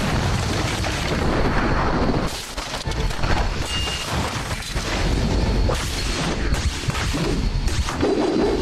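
Action-scene sound effects from a drama soundtrack: repeated booms and crashes of blasts and smashing debris, over a music score.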